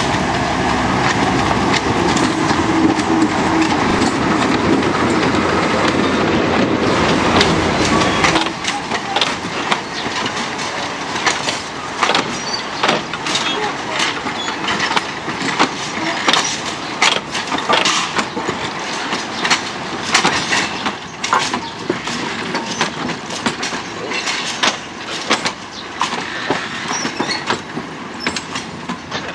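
TU2 narrow-gauge diesel locomotive running close by, its engine loud and steady for about eight seconds. Then the sound drops suddenly, and the passing coaches' wheels give a run of sharp clicks and knocks over the rail joints.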